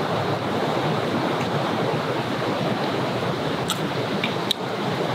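Steady rushing outdoor background noise, with a few short sipping clicks as a drink is sipped from a plastic cup about four seconds in.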